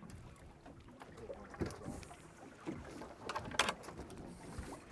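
Quiet deck sounds aboard a fishing boat sitting on open water: faint water against the hull, with a few scattered small knocks and clicks.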